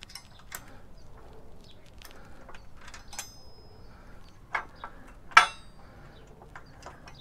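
Light metal clicks and clinks of steel parts being handled and fitted while a motorcycle lift jack is assembled, with a short metallic ring about three seconds in and a sharper clank about five and a half seconds in.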